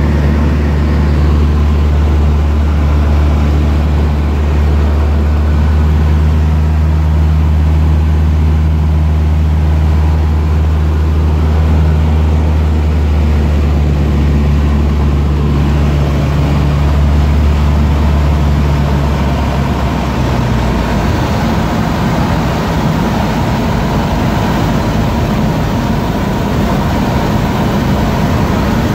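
Cessna 152's four-cylinder Lycoming engine and propeller droning steadily, heard from inside the cabin. About two-thirds of the way through, the steady low hum breaks up into a rougher rushing sound.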